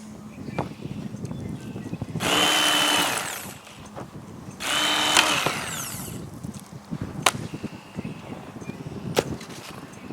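Small electric motor running in two short bursts of about a second each, with a steady whine, followed by a few sharp clicks.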